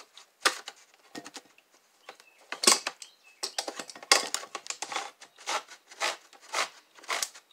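Handheld manual can opener being cranked around the rim of a soup can, clicking as it turns. A few separate clicks at first, then a steady run of about two clicks a second.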